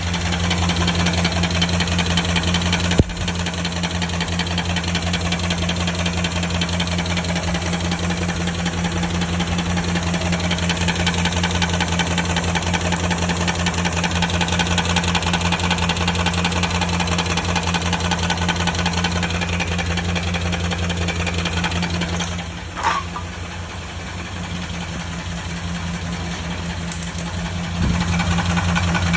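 Dodge Durango 4.7L V8 engine running steadily at idle with a fast, even tapping in time with the engine, a noise that remains after the heads, lifters, timing chain kit and oil pump were renewed. A single sharp click about three seconds in, and the sound drops quieter for a few seconds near the end before coming back up.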